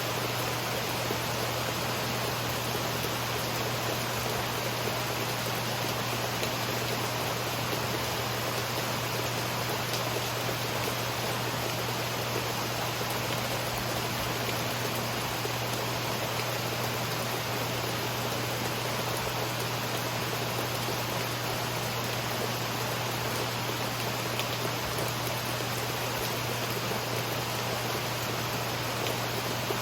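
Steady rain falling, an even hiss with no thunder, with a steady low hum underneath.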